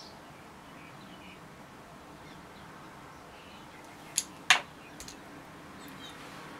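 Two sharp clicks over a faint steady hiss, the second the louder, about four and a half seconds in, followed by two small ticks: hard small objects knocking together as makeup tools are handled.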